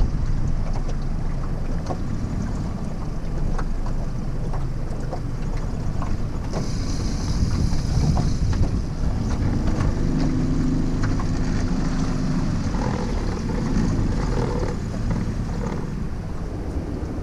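Wind buffeting the microphone on an open fishing boat at sea, a steady low rumble with scattered small knocks and clicks and a brief hiss about seven seconds in.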